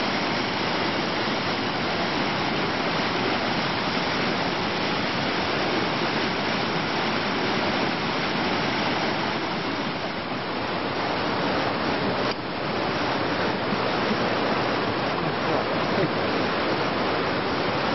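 Steady rushing of running water, even and unbroken apart from a brief dip about twelve seconds in.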